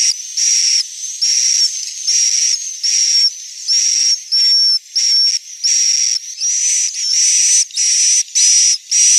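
Edible-nest swiftlets giving their roosting call ("suara inap"): a continuous run of short, hissing chirps, about two to three a second, each with a thin high whistle inside.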